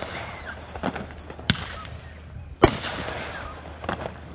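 200-gram consumer firework cake firing shots into the sky: four sharp bursting bangs about a second apart, the loudest about two and a half seconds in.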